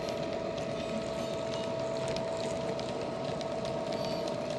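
Model Class 66 diesel's ESU LokSound 'Hifi' sound decoder playing its engine sound through a small EM2 speaker: a steady drone with one held tone, the recorded EMD two-stroke V12. Light clicks from the wagons' wheels on the track run through it.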